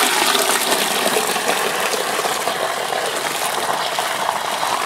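Water gushing in a steady stream into a plastic bucket of fermented nettle infusion, churning it to froth as the bucket fills: the infusion being diluted with water for liquid green fertiliser.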